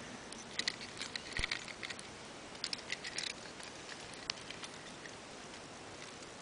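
Light, irregular rustling and clicking from the camera being handled and swung around, thickest in the first few seconds with a last click a little past the middle, then only faint hiss. The tractor's engine is not running.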